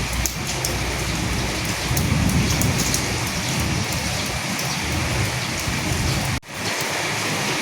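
Steady rain falling, with fine drip ticks over an even hiss and a low rumble that swells about two seconds in. The whole sound cuts out for a split second about six seconds in, then comes straight back.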